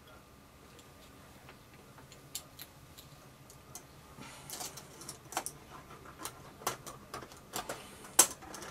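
Small clicks and taps of airsoft gearbox parts being handled as the mainspring and spring guide are fitted into an AEG gearbox shell. Quiet at first; the clicks come more often from about four seconds in, with a sharper one near the end.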